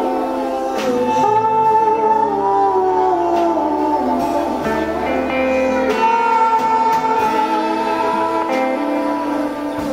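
Live band performance: a singer holding long, gliding notes over plucked acoustic guitar, with low sustained notes underneath.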